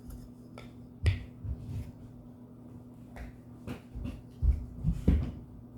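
A scattered series of light clicks and knocks, about ten in all, with a couple of heavier knocks near the end, over a faint steady low hum.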